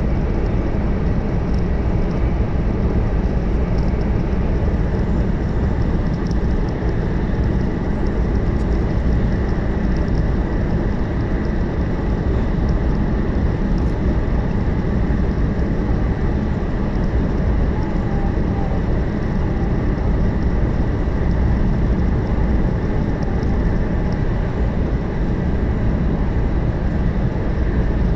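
500 Series Shinkansen running at speed, heard from inside the passenger cabin: a steady, loud rumble of wheels and air with a faint high hum above it.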